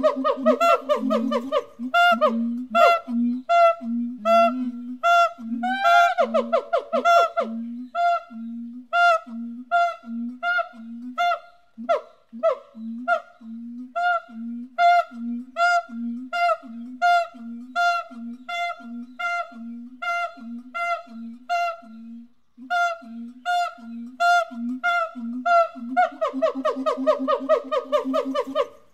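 Siamang song: a long series of loud, pitched hooting calls, about two a second, with faster runs of quick notes at the start, about six seconds in and near the end.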